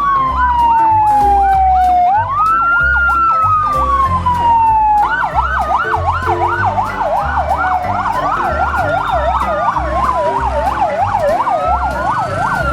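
Electronic fire-rescue siren: a wail that rises quickly and falls slowly, repeating every two to three seconds, layered over a fast warbling yelp.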